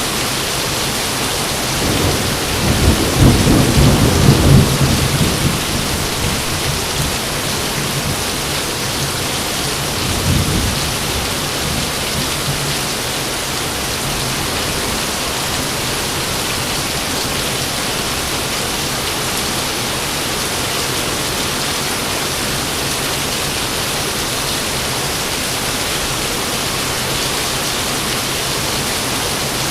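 Steady heavy rain with a thunderclap rumbling about two seconds in and dying away over several seconds, then a second, weaker rumble about ten seconds in.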